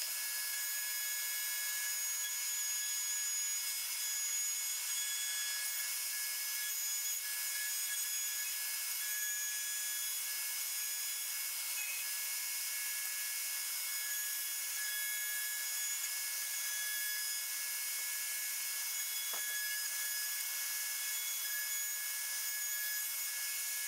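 Router table's motor running steadily with a high-pitched whine, its bearing-guided finger bit trimming and separating parts of 10 mm engineering plastic.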